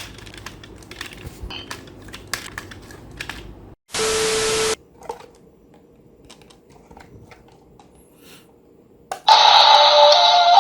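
A run of small sharp clicks like typing, a short loud hiss with a steady beep about four seconds in, then loud electronic music starting about nine seconds in.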